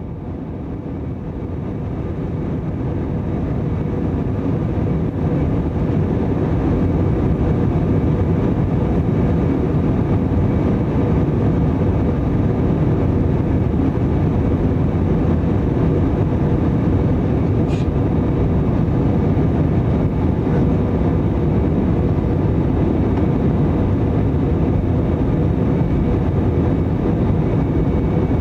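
Steady cabin noise of an Airbus A321 in flight, heard from a window seat over the engine: a low jet-engine rumble and airflow with a faint steady hum on top. It swells over the first few seconds, then holds level.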